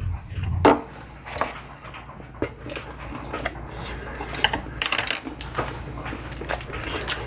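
Dishes and utensils clinking during a meal: scattered light clicks and taps, with one louder clack near the start.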